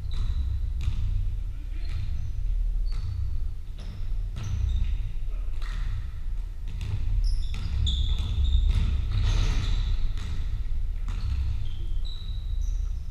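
Basketball bouncing on a hardwood court, echoing in a large sports hall, with irregular thuds about once a second and short high squeaks in between.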